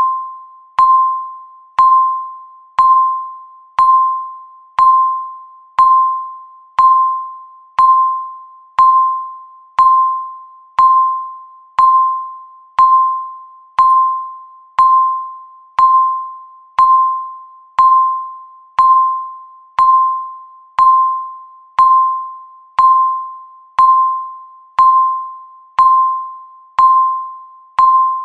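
Countdown timer beeping once a second: a single pitched electronic beep, each one starting sharply and fading away before the next.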